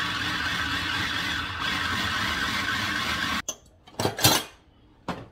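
Electric food processor running steadily, chopping a load of chickpeas, then cutting off abruptly about three and a half seconds in. A few loud knocks follow about half a second later.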